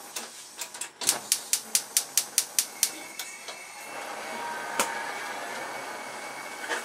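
Gas stove burner's spark igniter ticking rapidly, about four or five clicks a second, with a short break near the start. About three seconds in the burner lights and a steady flame hiss takes over, with one sharp click a little later.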